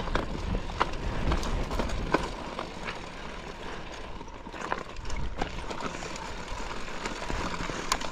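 Mountain bike rolling along a dirt trail: a steady low rumble with irregular clicks and rattles from the bike.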